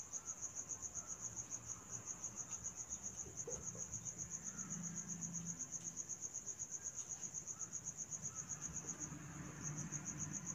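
A cricket chirping in a steady, high-pitched pulse of about seven chirps a second, with a brief break near the end.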